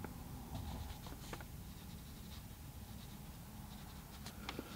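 Faint brush-on-paper sounds: a small round watercolour brush lightly stroking and dabbing short lines onto watercolour paper, a few soft strokes in all.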